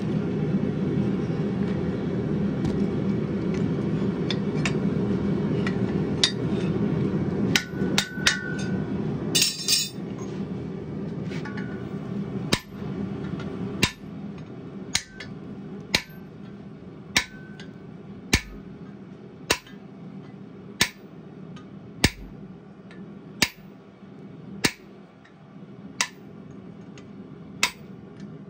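Blacksmith's hammer blows on a red-hot mild steel bar over an anvil: a quick cluster of strikes, then a steady run of single blows about one every second and a bit, driving a handled tool held on the hot bar, each with a short metallic ring. A steady low rushing noise sits underneath for the first third or so.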